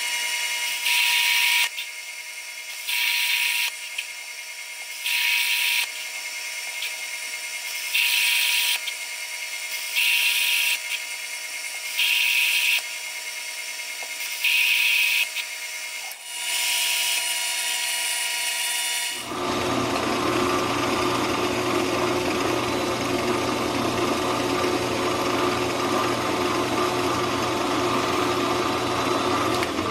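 Small benchtop metal lathe running, turning a 12L14 steel bar, with steady motor tones. The high hiss of the cut comes in short bursts about every two seconds. About two-thirds in it changes to a steadier, fuller run with a low hum.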